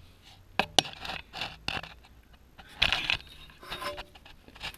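Intermittent hand-work noises at an engine's open water pump housing: two sharp clicks about half a second in, then short scrapes, the loudest about three seconds in.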